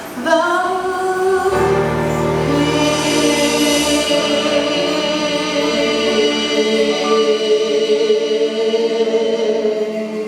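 Several voices singing a gospel hymn, holding one long chord from about a second and a half in.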